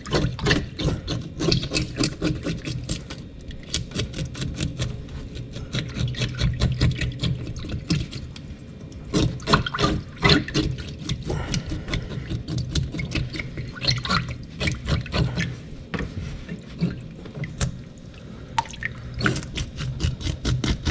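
Tap water running into a sink while a crappie is scaled under the water, with quick repeated scraping strokes.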